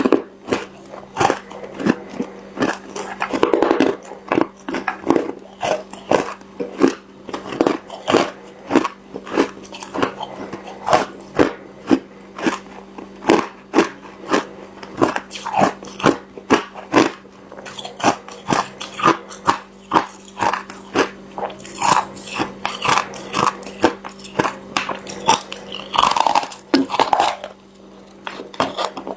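Ice being bitten and chewed, a steady run of crisp crunches, roughly two a second.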